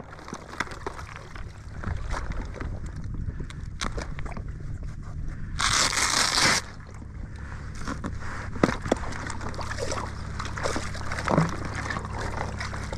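Handling of a fishing wader's waist bag and plastic tackle box: rustling fabric and small clicks and knocks, with water sloshing around the legs. A loud rasp lasting about a second comes about six seconds in.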